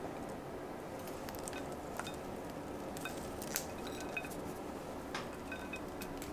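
A few faint clicks and light taps of metal kitchen tongs and toppings being set onto toast on a ceramic plate, over a steady low background noise.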